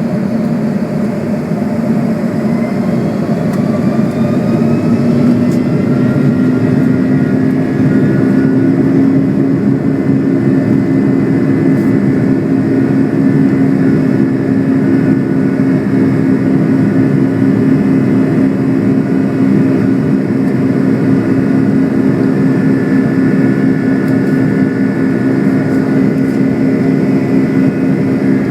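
Boeing 757-200's jet engines heard from inside the cabin during takeoff: a loud, buzzing drone of several stacked tones. The tones rise in pitch over the first several seconds as thrust builds, then hold steady.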